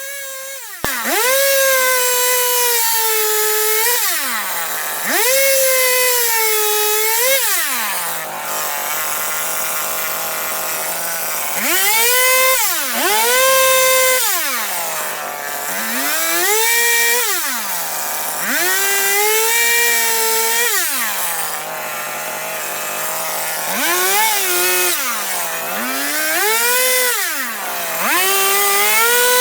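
Chainsaw carving into wood, revving up to full speed and dropping back to idle about eight times, with a longer idle stretch about a third of the way in.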